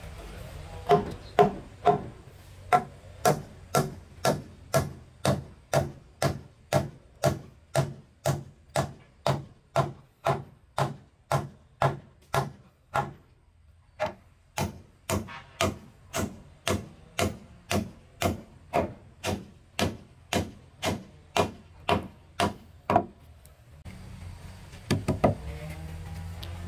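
Steady blows of a tool on wood, about two a second, with a brief pause about halfway through; the blows stop a few seconds before the end.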